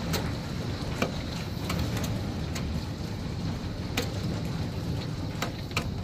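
Severe thunderstorm of wind-driven rain and hail: a steady rush with a low wind rumble, broken by scattered sharp ticks of hailstones striking close by, about ten of them.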